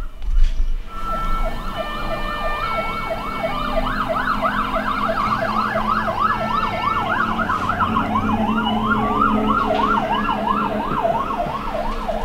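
Emergency vehicle sirens of a passing fire engine and ambulance. Stepped steady notes start about a second in, then give way to a fast up-and-down yelp about three times a second. A second, slower rising wail joins in the second half.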